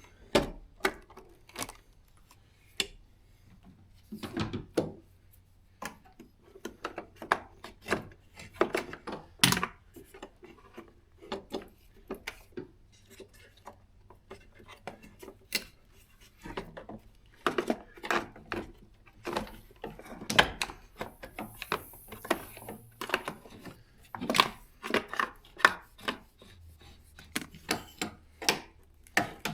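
Irregular clicks, taps and clatter of hands working parts in a car engine bay: plastic hose connectors, hoses and fasteners being handled and fitted.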